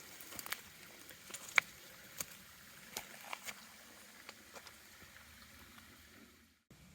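A hiker's footsteps on a forest trail: irregular soft crunches and clicks over a faint steady outdoor hiss, with a brief dropout near the end.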